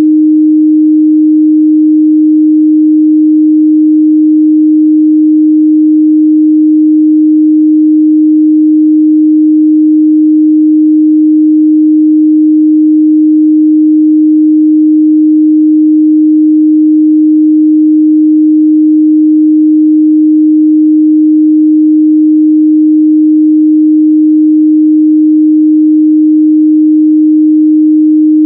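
A steady, unbroken 308 Hz sine-wave test tone, one pure midrange pitch held at a constant loud level.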